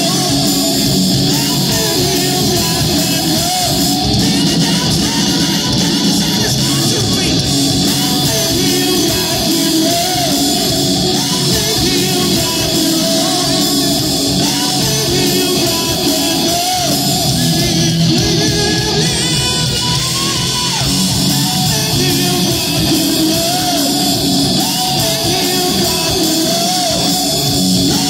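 Live rock band playing loud: electric guitars and drums under a male singer's voice.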